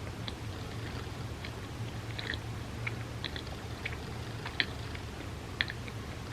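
Close-miked chewing of a bagel with cream cheese: scattered short, wet mouth clicks and smacks at an irregular pace, two of them sharper about two-thirds of the way through, over a steady low hum.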